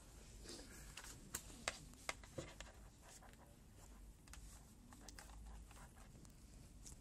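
Faint, scattered clicks of a computer mouse over quiet room tone, the sharpest few coming between about one and two and a half seconds in.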